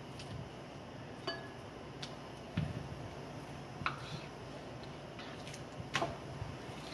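Knife slicing raw chicken breast on a plastic cutting board: a few scattered soft taps and clicks, one of them a short ringing clink about a second in.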